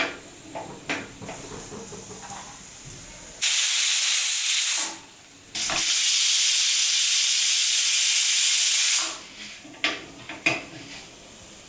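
Aluminium pressure cooker venting steam in two loud hisses, about a second and a half and then about three and a half seconds, each stopping sharply, as its weight valve is lifted by hand to let the pressure out. Light metal clinks and knocks from handling the cooker come before and after.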